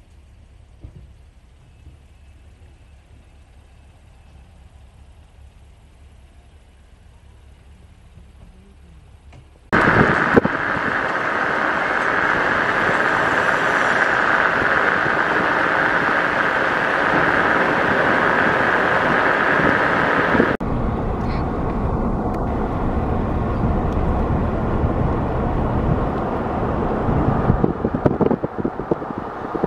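Faint outdoor background, then about ten seconds in a sudden loud, steady rush of large vehicles passing close by, which stops abruptly after about eleven seconds. A slightly quieter steady rush of vehicle noise follows.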